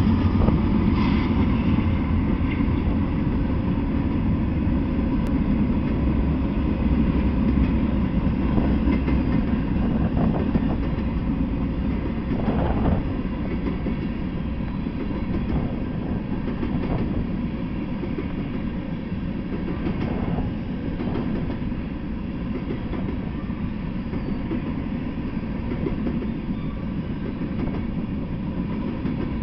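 Norfolk Southern freight train of covered hoppers and tank cars rolling past: a steady rumble of steel wheels on the rails, with scattered clicks as the cars cross rail joints. The low rumble eases a little about halfway through.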